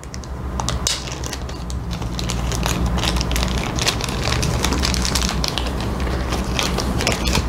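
Clear plastic packaging crinkling and crackling steadily as a camera battery is unwrapped by hand.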